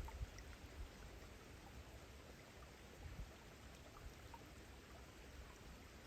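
Faint, near-silent patter of scattered raindrops, with a low rumble at the very start.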